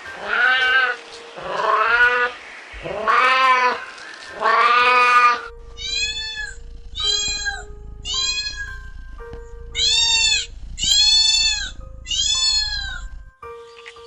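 Domestic cat meowing repeatedly: four drawn-out meows, then a higher-pitched run of six shorter meows from about halfway through.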